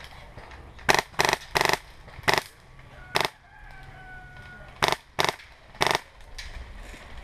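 CYMA RPK airsoft gun with a Wolverine Inferno Gen 2 HPA engine firing about eight short full-auto bursts. They come as a rapid group of five, then, after a pause of about a second and a half, three more.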